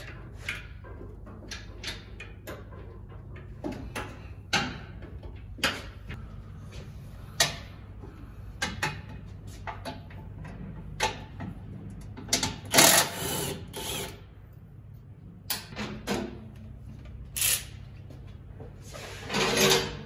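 Cordless power tool running in short bursts on bolts under a vehicle, the longest about a second each, among sharp metal clanks and clicks of tools, over a low steady hum.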